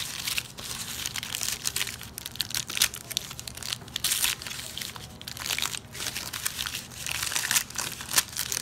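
The red paper wrapping of a pack of big paper firecrackers being torn open and crumpled by hand: an irregular run of crinkling and ripping.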